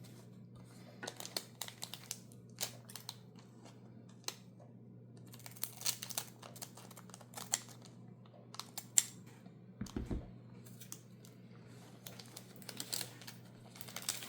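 A foil Magic: The Gathering Play Booster wrapper being crinkled and opened and the cards handled: scattered sharp crackles and clicks over a low steady hum, with a soft thump about ten seconds in.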